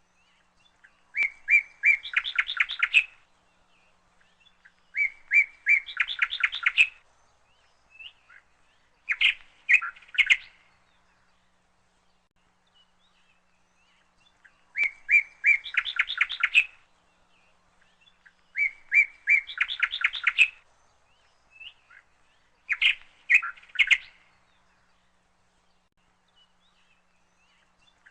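A bird singing the same short song six times: a few clear notes, then a fast trill, with pauses of a few seconds between songs.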